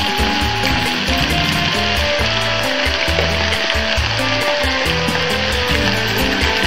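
Steady sizzling of a T-bone steak and sliced vegetables frying on a hot electric grill plate, with metal tongs pushing and turning the vegetables.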